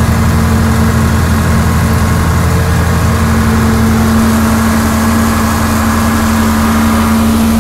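John Deere 4430 tractor's six-cylinder turbo diesel running steadily while pulling a field sprayer, heard from inside the cab as a loud, even drone.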